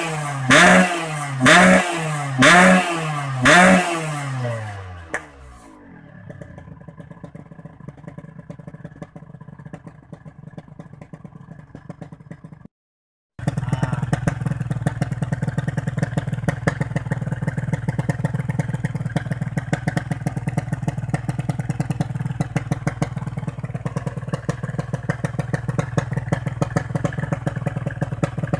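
Motorcycle engine through an aftermarket standard-style exhaust, type PK1, being sound-checked. The throttle is blipped about five times in the first four seconds before the engine drops back to a quiet idle. After a brief cut it idles steadily with a fast, even exhaust pulse.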